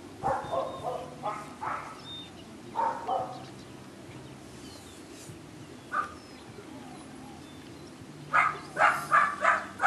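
Dog barking in short bursts: several barks in the first two seconds, two more around three seconds, a single bark about six seconds in, then a quick run of about five barks near the end.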